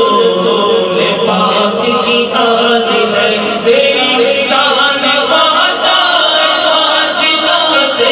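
Men singing a naat, a devotional Islamic chant, into microphones: a lead voice with a second singer joining in.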